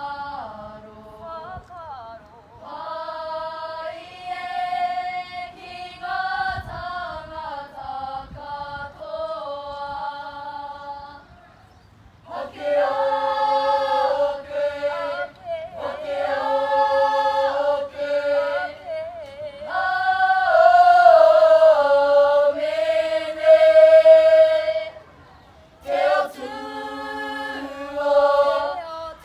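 A group of school students singing a Māori waiata together in unison, unaccompanied, in long held phrases with short breaks between them.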